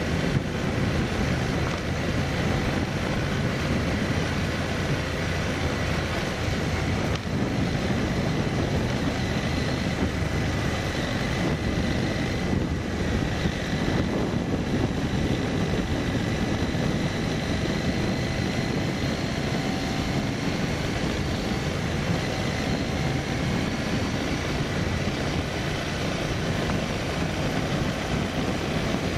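Vehicle running steadily at road speed, heard from on board, with a constant rumble and a thin high whine.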